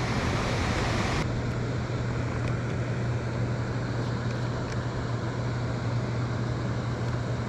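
Small fishing boat's motor running steadily while trolling: a constant low hum under a steady rush of wind and water.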